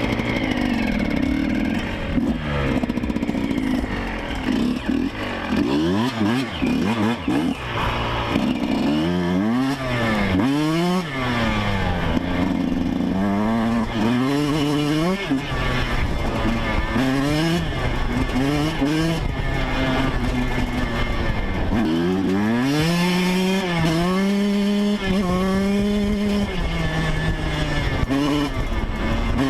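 Yamaha YZ125 single-cylinder two-stroke motocross engine being ridden hard, its pitch repeatedly climbing and falling with throttle and gear changes, then held steadier near the end.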